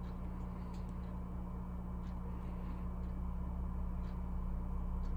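Steady low electrical hum with a few faint, light ticks as a soldering iron and tweezers work a wire onto a circuit-board pad.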